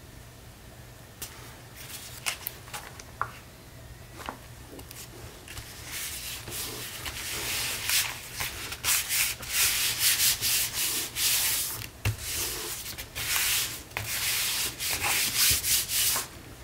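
Hands rubbing and smoothing a freshly glued paper print flat onto a cardstock cover: a dry papery swishing in repeated strokes, faint at first and louder from about five seconds in.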